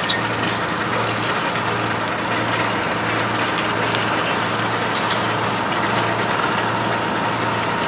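Fire engine's engine running steadily at idle, a constant low hum.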